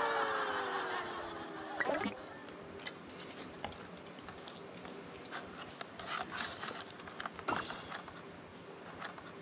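Scattered small clicks and taps of metal chopsticks against a paper bowl and crab shell during slow, careful eating. They follow a long tone that slides downward and fades out about two seconds in.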